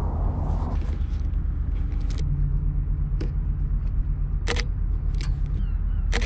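A camera's shutter clicks three times, a few seconds apart, as a Fujifilm X-Pro3 takes photos. Under it runs a steady low rumble.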